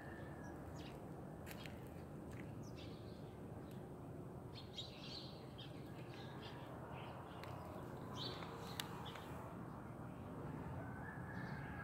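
Quiet outdoor ambience: scattered bird chirps over a steady low background rumble, with a few faint clicks. Near the end a long wavering tone sets in.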